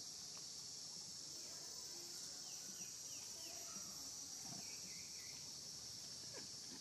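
A steady, high-pitched chorus of insects, with four short falling chirps a little over two seconds in.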